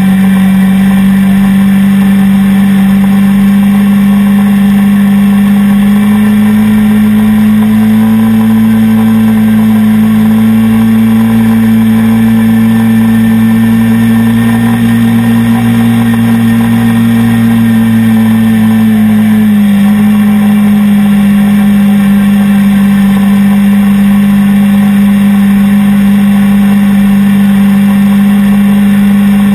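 ATV engine running steadily under way, loud and close. Its pitch rises a little about six seconds in, holds, then drops back about twenty seconds in.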